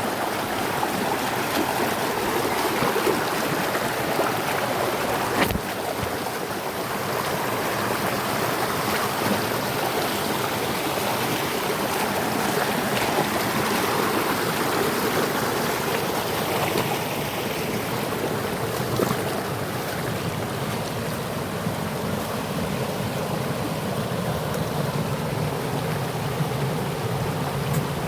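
River water rushing steadily over rocks and small cascades, with one brief click about five seconds in.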